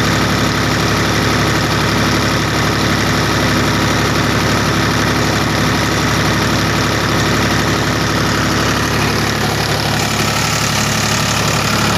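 Farmtrac tractor's diesel engine running at a steady, held speed, driving a tractor generator.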